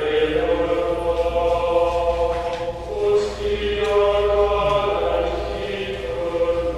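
Church congregation singing a slow chant in unison, long notes held for several seconds, the melody moving to a new pitch about three seconds in.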